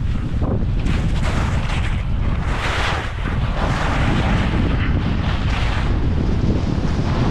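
Wind buffeting the microphone during a fast ski descent, a heavy low rumble, with the hiss of skis sliding and turning on snow rising and falling in surges.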